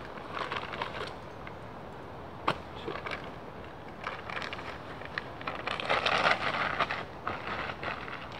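Crinkling and rustling of a plastic bag being handled, in irregular bursts, loudest about six seconds in. A single sharp click comes about two and a half seconds in.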